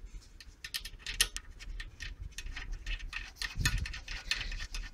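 Light metallic clicks and scratches of a small carburetor bowl drain screw being put back and threaded in by hand, with a soft low bump about three-quarters through.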